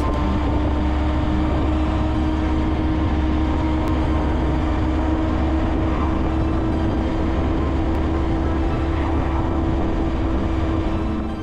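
Honda Monkey 125's single-cylinder engine running steadily at cruising speed, its pitch holding even, under a heavy low wind rumble on a chest-mounted action camera.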